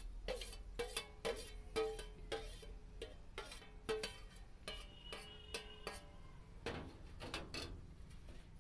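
A steel slotted spoon knocking and scraping against a steel plate as chopped onion, ginger, garlic and chilli are pushed off it into a steel bowl. The knocks come irregularly, and several leave the plate ringing briefly.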